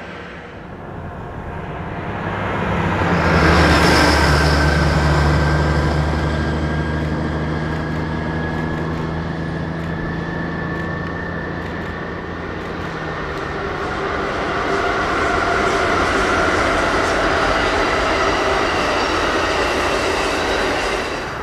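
Amtrak Siemens ALC-42 Charger diesel-electric locomotives pass with a steady diesel drone that is loudest a few seconds in. The passenger cars then roll by with rumbling wheel-on-rail noise and some faint high tones from the wheels.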